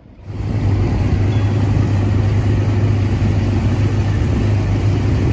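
Motorboat engines running steadily at speed, a loud, even low hum under a rush of wind and water, starting suddenly about a quarter-second in.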